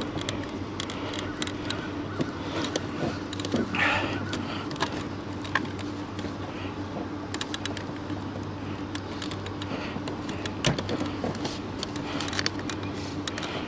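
Small scattered plastic clicks and rattles from hands working a wiring connector and its clip inside a car door, with a brief scrape about four seconds in, over a steady low hum.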